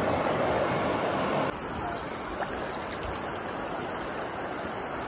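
Mountain stream rushing over rocks in rapids, a steady rush of water. About a second and a half in, it cuts abruptly to a quieter, softer flow.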